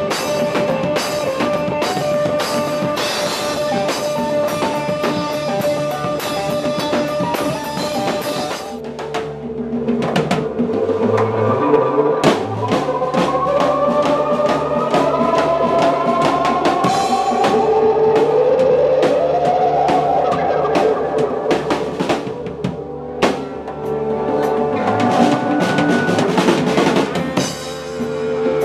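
Live drum kit played hard with sticks: a busy beat on snare, bass drum and cymbals. The beat breaks briefly about nine seconds in, and a pitched melody line, gliding upward in places, plays over the drums from about ten seconds in.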